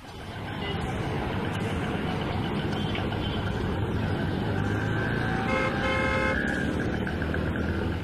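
Road traffic: a steady rumble of vehicles, with a car horn honking twice a little past the middle.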